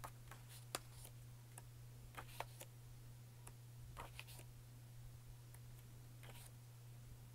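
Pages of a paper booklet being flipped by hand: faint, scattered paper clicks and flutters, over a steady low hum.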